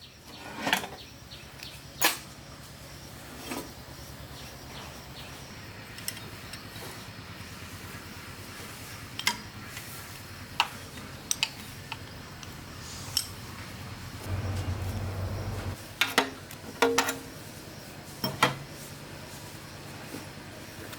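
Scattered sharp metal clinks and knocks of tools and engine parts being handled, with a short low hum about two-thirds of the way through.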